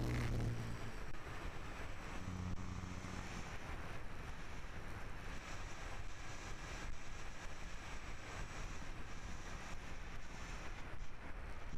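Air rushing over the onboard camera of a Flyzone Sensei electric RC glider in flight. The low drone of its motor stops about a second in and comes back briefly a couple of seconds later, leaving mostly wind noise.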